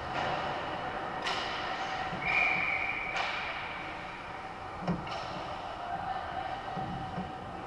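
Echoing indoor ice-rink ambience during hockey play: a steady arena hum with sharp clacks of sticks and puck about one, three and five seconds in, and a brief high steady tone lasting about a second, a little after two seconds in.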